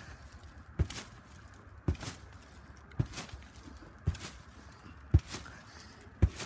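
Trampoline mat thudding under a child's repeated backflip landings: six low thumps in a row, about one a second.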